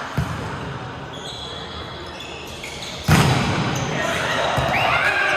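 Volleyball play in an indoor hall: a light ball contact just after the start, then a hard hit on the volleyball about three seconds in. Short high squeaks follow near the end.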